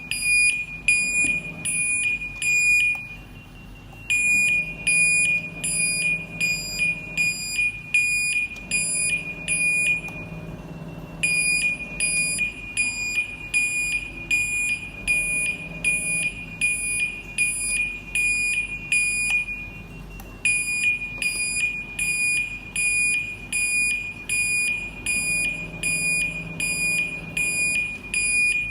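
MUCCO SNT-B712 electronic trumpet horn sounding one of its siren melodies, turned down with its volume knob: a high steady tone with a fast pulsing beat, stopping briefly three times.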